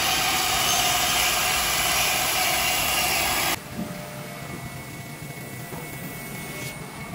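5-axis CNC router spindle running and cutting polystyrene foam, a loud steady hissing noise. About three and a half seconds in it drops suddenly to a quieter steady run with a faint high whine.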